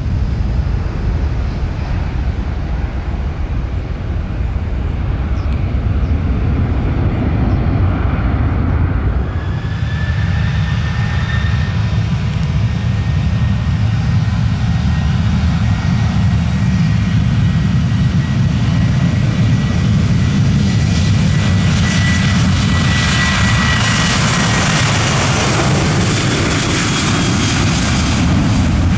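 Jet airliner engines at takeoff: an Embraer 170's engines running, then from about ten seconds in a Boeing 737-800's CFM56 engines with a steady fan whine, the noise growing brighter and stronger toward the end as the jet accelerates away.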